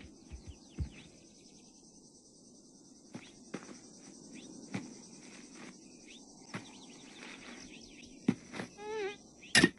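Savanna ambience from the cartoon's soundtrack: a steady faint insect and cricket chorus with scattered soft clicks. Just before the end a short wavering buzz of an insect, then a sharp click.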